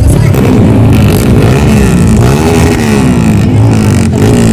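Dirt bike engine revving hard, its pitch rising and falling repeatedly as the throttle is worked.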